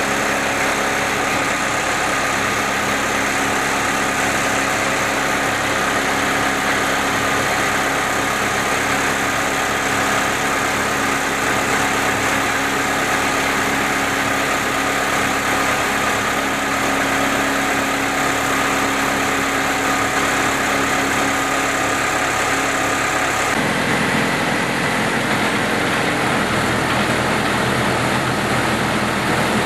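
Kaishan KG940A down-the-hole crawler drill rig running steadily, a constant machine hum with several held tones from its engine and hydraulic drive. The tone changes abruptly twice in the last six seconds.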